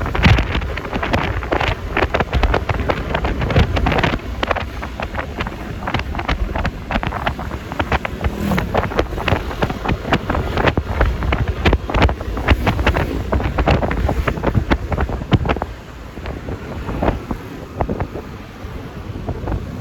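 Wind buffeting and crackling on the microphone while riding a Yamaha Lexi LX 155 scooter, over a low rumble of engine and road noise. It eases for a couple of seconds near the end.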